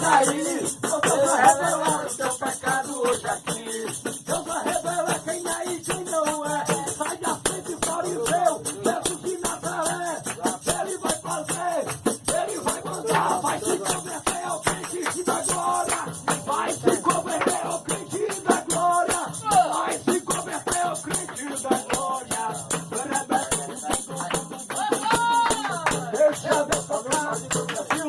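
Lively worship music with a fast, steady rattling percussion beat and voices singing.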